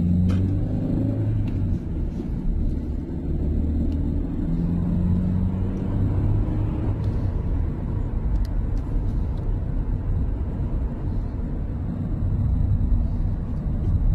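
A car driving along a road, heard from inside the cabin: a steady low rumble of engine hum and road noise.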